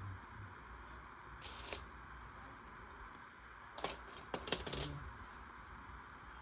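Plastic LEGO Technic pieces clicking and clattering as they are handled and fitted together: a couple of sharp clicks about a second and a half in, then a quick run of clicks around four to five seconds in.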